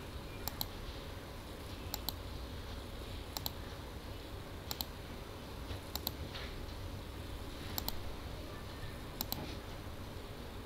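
Computer mouse button clicked seven times, roughly every one and a half seconds, each click a quick double tick of press and release, over a faint steady room hum.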